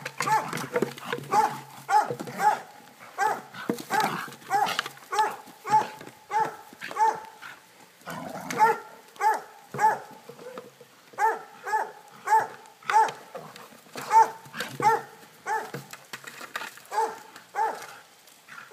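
Border Collie barking over and over, short sharp barks about two a second, with a couple of brief pauses.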